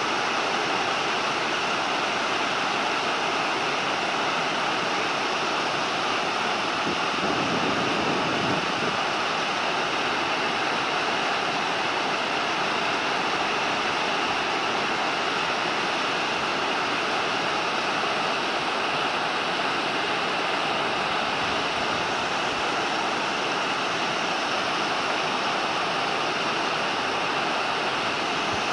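River water pouring over a low weir: a steady, unbroken rushing.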